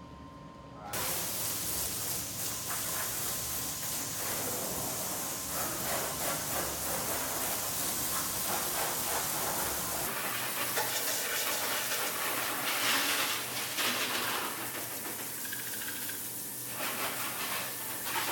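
Garden hose pistol-grip nozzle spraying water onto a pickup truck's soapy body panels to rinse it, a steady hiss and splatter starting suddenly about a second in.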